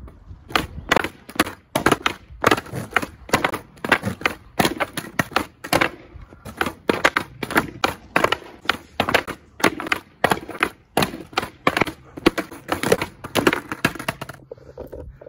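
Skateboard clattering on asphalt during repeated kickflip attempts: a rapid run of sharp clacks and slaps from the deck and trucks hitting the road, two to three a second, stopping abruptly near the end.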